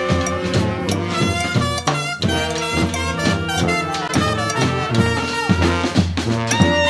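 Instrumental swing-style jazz with brass and saxophone.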